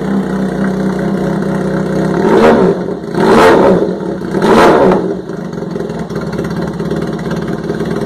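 Motorcycle engine idling through a dual-tip aftermarket slip-on exhaust, blipped three times in quick succession a couple of seconds in, the last two revs the loudest, then settling back to a steady idle.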